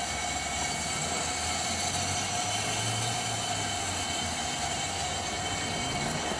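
Narrow-gauge steam locomotive 7A, an NA-class 2-6-2T, standing still with steam up. It gives a steady hiss of steam with a faint steady tone and a low hum beneath it.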